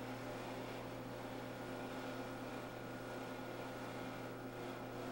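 Steady electrical hum with a faint hiss behind it, unchanging throughout.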